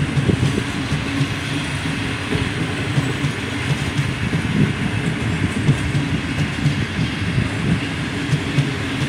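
Container wagons of a freight train rolling past on the track: a steady rumble of steel wheels on rail, broken by many short knocks.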